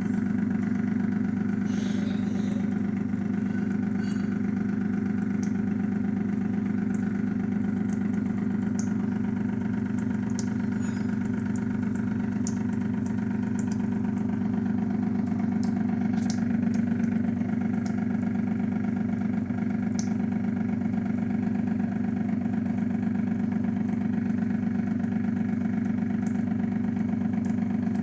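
Aquaguard RO water purifier's booster pump running with a steady buzzing hum and a few faint scattered ticks: the unwanted noise from the purifier that is being diagnosed.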